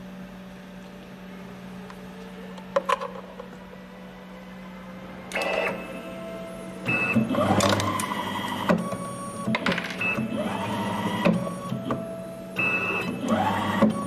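Automatic coaxial cable stripping machine running a stripping cycle. A steady low hum and a couple of clicks about three seconds in give way, from about five seconds on, to repeated bursts of motor whirring with whines that rise and fall in pitch as the cutter head moves and turns.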